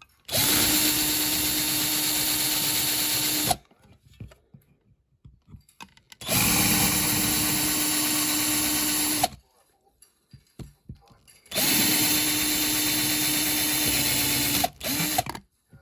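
Small electric drill running in three steady bursts of about three seconds each, with a short fourth burst near the end, drilling out the rivets that hold a diecast model van together.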